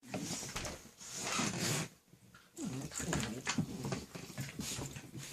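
Two puppies play-fighting: scuffling and rustling for about the first two seconds, then, after a brief lull, a run of short puppy vocal noises over continued scuffling.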